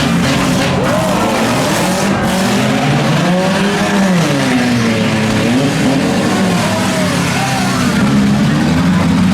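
Several demolition derby cars' engines running and revving at once, their pitches rising and falling over one another in a loud, continuous din.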